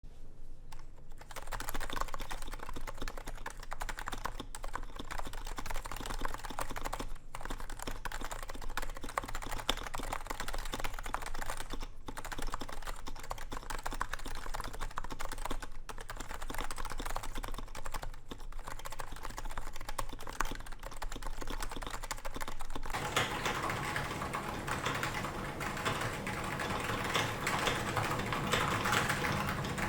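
Typing on a keyboard with stock Realforce R2 Topre switches, unlubed, under Realforce R2 keycaps in a DNFU prototype case with a stainless steel plate: a fast, steady stream of key presses with brief pauses every few seconds. About 23 seconds in the typing grows louder and fuller.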